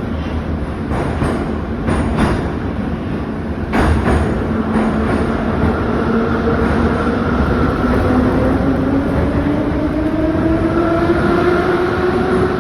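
81-717/714 metro train running through a station, its wheels knocking loudly over the rail joints, with a few sharp knocks in the first four seconds, the loudest at about four seconds in. From about the middle its traction motors whine, rising steadily in pitch as the train gathers speed.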